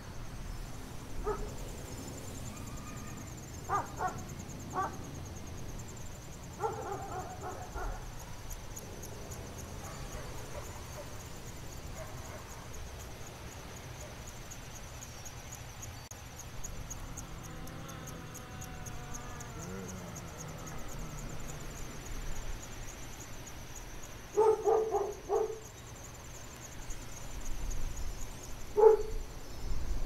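Dogs barking in several short bouts, the loudest near the end, over a steady low wind rumble.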